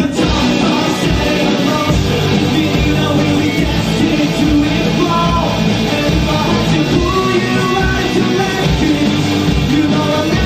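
Live rock band playing a pop-punk song, with a singer over the band.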